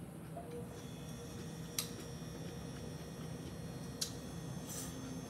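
Three short light clicks of metal chopsticks as they pick up stir-fried ramen noodles, over a steady faint hum.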